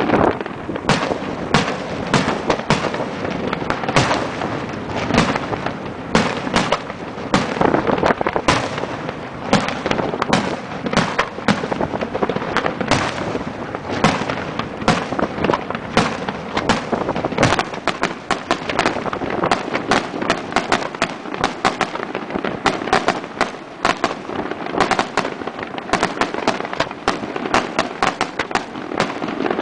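Daytime fireworks barrage, a 'diana': aerial salutes bursting overhead in a rapid, unbroken string of loud bangs, several a second, with no pause.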